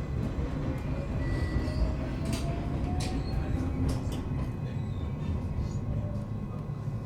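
JR West Special Rapid electric train running, heard from inside: a steady low rumble of wheels on rail with scattered sharp clicks, and a faint motor whine rising slowly in pitch over the first few seconds.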